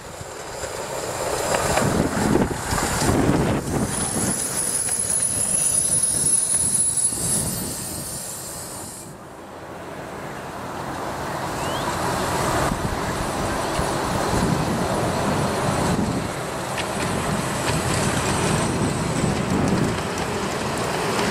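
Miniature steam locomotives passing close by: steam exhaust and wheels running over the small-gauge track, with a thin high wheel squeal lasting about three seconds early in the pass. After a brief dip, a miniature Garratt 0-4-0+0-4-0 steam locomotive approaches and runs past with its train.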